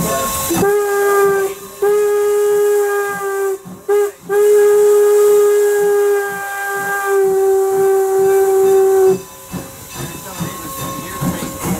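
Steam whistle of Norfolk and Western 4-8-0 No. 475 blowing the grade-crossing signal: two long blasts, a short toot, then a final long blast held about five seconds.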